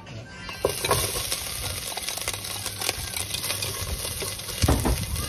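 Dried shrimp sizzling and crackling in hot oil in a steel pot after being tipped in, stirred with chopsticks. A louder knock comes about a second in and another near the end.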